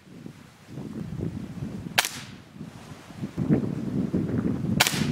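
Two sharp cracks from a spring piston air rifle shooting pellets at a cardboard target, one about two seconds in and one near the end.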